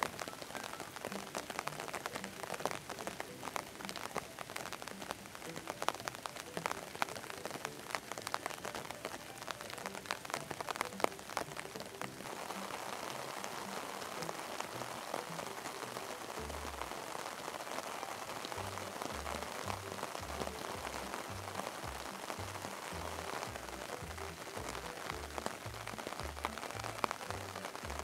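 Soft background music with a slow, low pulsing beat, under a dense crackling patter that gives way to a smoother hiss about twelve seconds in.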